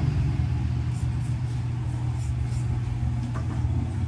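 Steady low mechanical rumble, like an engine or motor running.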